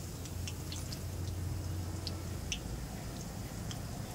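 Hot oil frying cauliflower pakoras in a kadhai, sizzling faintly, with scattered sharp crackles and drips as the fritters are lifted out on a wire skimmer. A low steady hum runs underneath.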